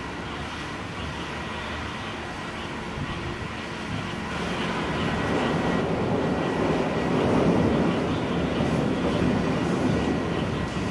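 Distant thunder rumbling low and continuous, swelling over a few seconds around the middle and then easing off.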